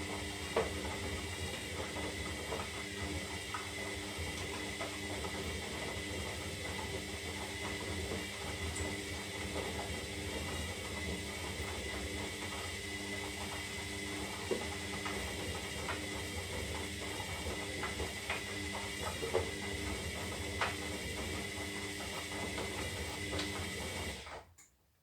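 Zanussi Lindo 300 washing machine running in the wash phase of a 60-degree synthetics cycle: a steady motor whine with a high tone and scattered clicks and knocks, stopping abruptly near the end.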